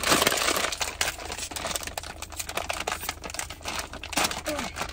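A plastic bag of Flamin' Hot Cheetos being pulled open by hand, crinkling and crackling in a dense run of sharp crackles.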